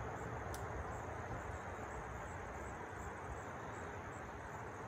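Steady high insect chirring with low background rumble, no other event.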